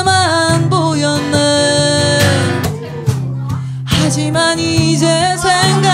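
A woman singing a slow ballad into a microphone over acoustic guitar accompaniment, the voice holding wavering, sustained notes with a brief break about three seconds in.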